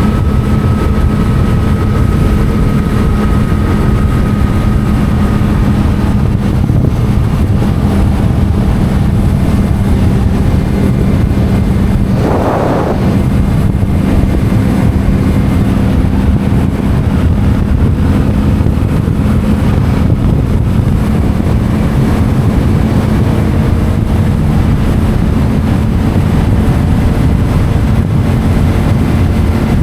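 Yamaha MT-07's 689 cc parallel-twin engine through an Akrapovic titanium exhaust, running at steady revs while riding, with wind rush. A short burst of higher-pitched sound about twelve seconds in.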